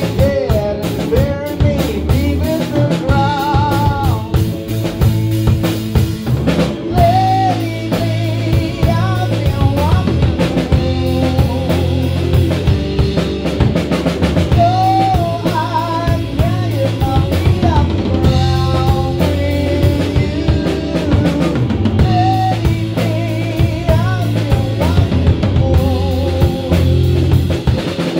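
Live rock band playing: drum kit and electric guitars, with a man singing over them.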